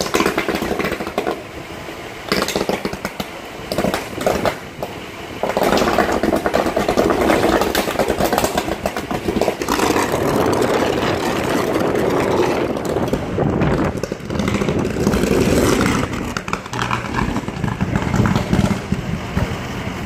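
Underground electrical fire burning out of a street manhole: flames jetting and rushing, with crackles and pops, growing louder about five seconds in.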